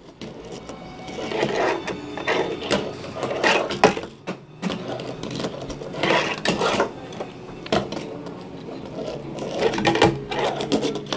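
Tech Deck fingerboard rolling and clattering on a grip-taped ramp and a wooden tabletop: the small wheels rattle as it rolls, with sharp clacks as the board pops and lands, several times over.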